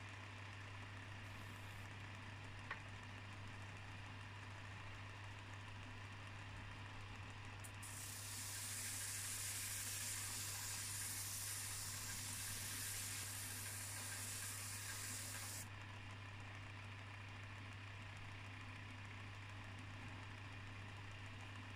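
Belt sander humming steadily with its abrasive belt running. From about 8 s in, a flat steel piece is pressed against the belt and gives a steady hissing scrape for about eight seconds before it is lifted off: the metal face being polished.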